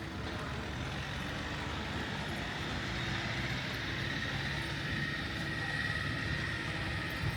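A motor vehicle running close by over outdoor street noise, with a faint high whine that grows stronger partway through.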